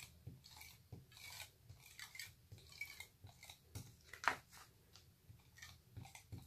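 Tape runner (tape pen) drawn along the edge of white card, laying glue tape with faint raspy strokes and paper rustling; one sharper rasp a little past four seconds in.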